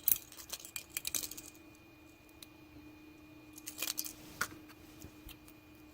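Small metal parts of a pin-tumbler lock clicking and clinking as it is taken apart by hand: a quick run of clicks in the first second and a half, then a few single clicks spaced out.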